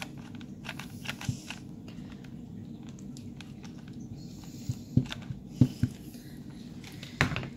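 Close handling sounds of satin ribbon being pressed and hot-glued: scattered small clicks and crinkling, several sharper ones about five seconds in and just before the end, over a steady low hum.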